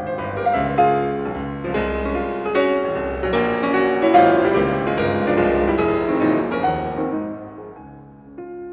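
Piano music playing, building up about a second in and easing off near the end.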